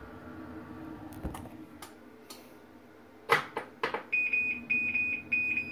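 Washing machine running with a steady low hum, then a few sharp knocks about three seconds in, followed by a run of evenly spaced high electronic beeps, a little under two a second, from the machine's panel.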